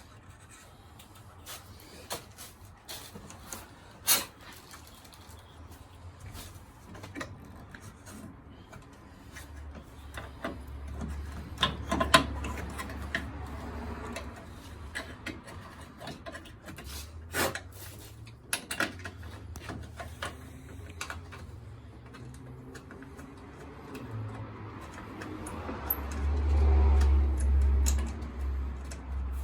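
Handling noise from hands and tools working on car wiring: scattered clicks and knocks with some rubbing, and a low rumble for a couple of seconds near the end.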